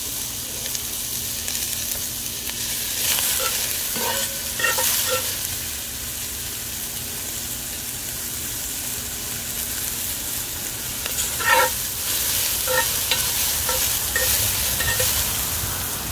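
Diced onions sizzling in hot oil in a cast iron Dutch oven, with a metal spoon stirring them and knocking against the pot. The knocks ring briefly, in two spells; the loudest comes a little past two-thirds of the way through.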